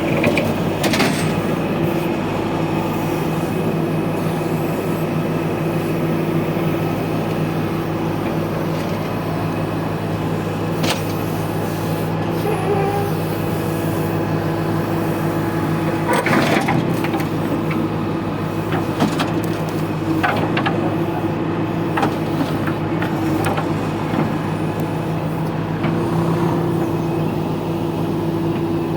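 TATA TH86 backhoe loader's diesel engine running steadily under working load, with a few sharp knocks or clanks of the working equipment now and then.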